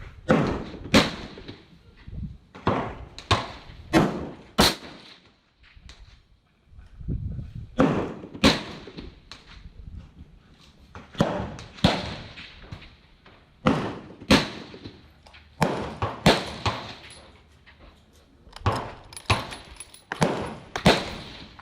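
Gunfire from several shooters on a shooting range: about twenty sharp shots at an irregular pace, some in quick pairs, with a brief lull about six seconds in.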